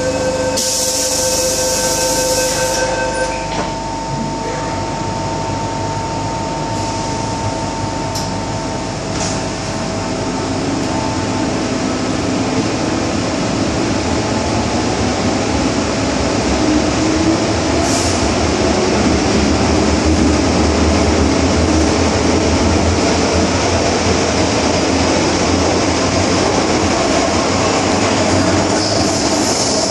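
Inside an MTR M-Train car as the train pulls out of a station: a loud hiss of the doors closing in the first few seconds, then the train accelerating into the tunnel, its motors' tone rising in pitch over the rumble of wheels on the rails.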